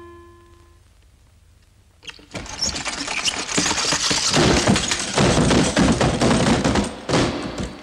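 About two seconds of near quiet, then a loud, dense rattling clatter, many irregular knocks over a noisy rumble, as the small wheeled cart loaded with a crate runs down a stairway; it lasts about five seconds and stops abruptly near the end.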